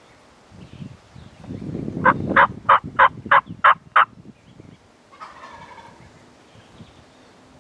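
Turkey yelping: a loud series of seven short, evenly spaced notes about three a second, followed a second later by a fainter, shorter turkey call.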